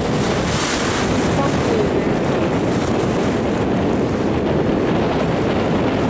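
Choppy sea surf with small waves breaking and washing in, under strong wind buffeting the microphone with a steady low rumble.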